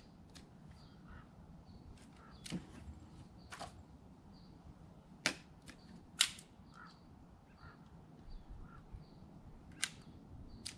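CO2 pellet pistol firing a string of shots: about six short, sharp pops at uneven intervals, one to three and a half seconds apart.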